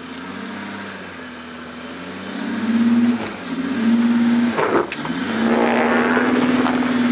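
2007 Honda Pilot's 3.5-litre V6 revving under load as it climbs a rutted dirt trail. The engine gets louder and higher in steps and dips briefly twice, with a couple of sharp knocks about halfway through, then holds at high revs.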